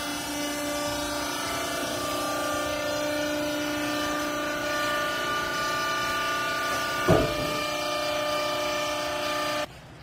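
Hydraulic power unit of a vertical used-clothes baler running, a steady mechanical hum with several level tones. One sharp knock comes about seven seconds in, and the running stops abruptly near the end.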